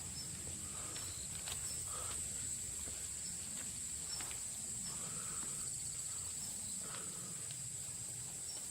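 Chorus of insects singing in one steady, unbroken high-pitched buzz, with a few faint short chirps over it.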